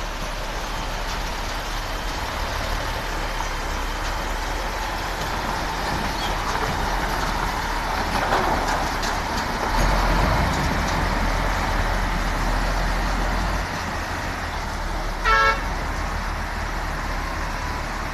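Diesel dump truck engine running and pulling through shallow river water over rushing water, the engine's rumble swelling for a few seconds past the middle. A short horn toot sounds near the end.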